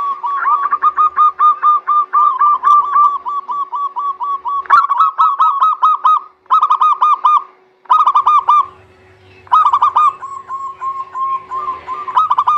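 Zebra doves (perkutut) cooing in fast runs of short, even notes, several a second. The song starts as one long run, then comes in louder clusters with short gaps between them, and ends in a softer run.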